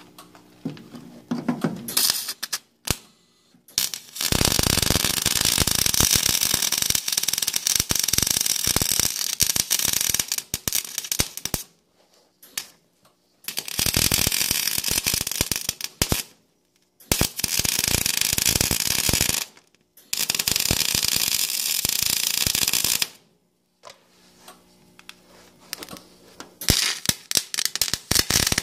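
Wire-feed welder arc-welding on the rusty steel mower deck: a steady crackling sizzle in runs of several seconds, the first about seven seconds long and the next three shorter, with brief pauses between. It ends in short sputtering starts near the end.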